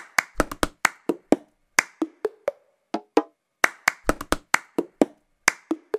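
Cup-song percussion: hand claps and a cup tapped and knocked on a tabletop, in a repeating rhythm of quick separate strokes, with no other instruments yet.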